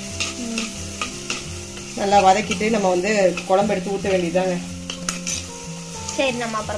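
A metal ladle stirring shallots and green chillies in sizzling oil in a clay pot, with repeated scraping clicks against the pot. A melody from background music plays alongside.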